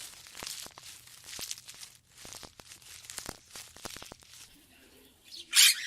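Crackling, rustling noise with many small clicks, then a short, loud, high-pitched sound near the end.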